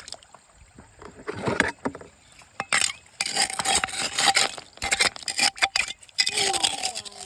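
Water sloshing and splashing in a river, with irregular knocks and scrapes, densest in the middle.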